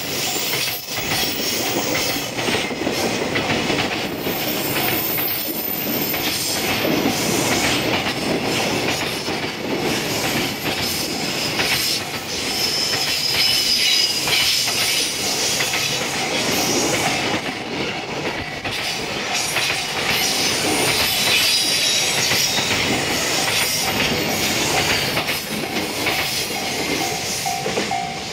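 Loaded container flatcars of a freight train rolling past on a curve: a steady clatter of wheels over rail joints, with high wheel squeals rising from the curve several times.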